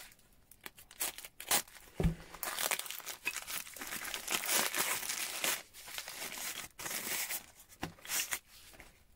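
Paper packaging being torn open and crumpled by hand as a taped parcel holding a tool is unwrapped: irregular tearing and crinkling rustles with short crackles.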